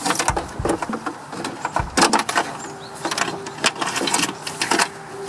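Plastic connectors, clips and the wiring harness of a car door rattling and clicking as they are handled and pulled out by hand: rapid, irregular sharp clicks and knocks.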